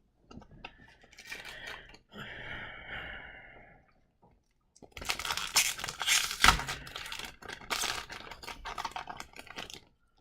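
A foil trading-card pack wrapper crinkling and tearing, with cards being handled: a short rustle, then a louder run of crackling from about halfway through.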